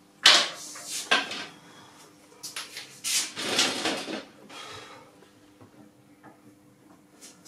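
Clattering and knocking of equipment being handled, in several short bursts, the loudest near the start and a longer stretch around the middle, over a faint steady hum.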